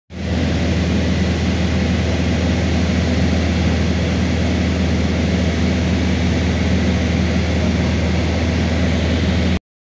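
Cessna 150's four-cylinder Continental O-200 engine and propeller droning steadily in flight, with rushing air noise, heard inside the cabin. It starts abruptly and cuts off suddenly near the end.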